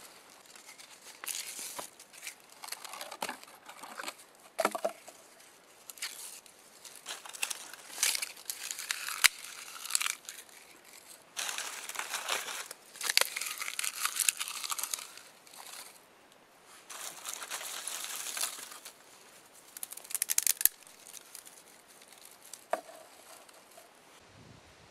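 Dry tinder (birch bark and dry grass) being crumpled, torn and packed by hand in a string of irregular crinkling, crackling bursts, with an occasional sharp snap of a twig, while a campfire is being laid.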